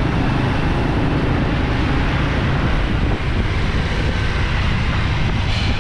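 Steady city street traffic noise, with a low wind rumble on the microphone.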